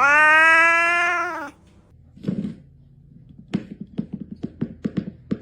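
A cat giving one long, loud meow lasting about a second and a half, its pitch rising slightly and then falling. After a short, fainter sound, a run of quick light taps follows at about four a second near the end.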